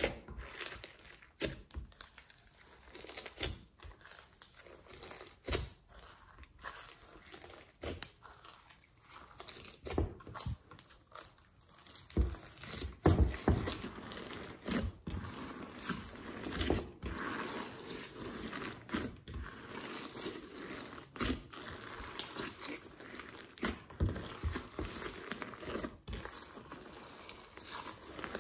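Hands squeezing, folding and kneading thick slime mixed with sequins and glitter in a glass dish, making irregular crackles and clicks as it stretches and presses. The crackling becomes denser and louder about halfway through.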